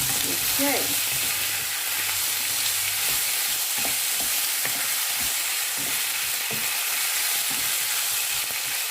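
Pork belly and freshly added tomatoes sizzling in oil in a pan with a steady hiss. From about three seconds in, a utensil stirring them gives irregular light clicks and scrapes against the pan.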